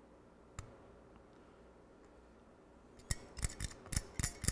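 A small flat metal file scraping the dirty battery contacts in a TV remote control's battery compartment to clean them. There is one sharp tick about half a second in, then from about three seconds in a quick run of short scraping strokes, several a second.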